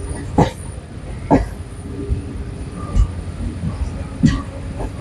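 Passenger train rumbling steadily at low pitch, with four sharp knocks at uneven intervals.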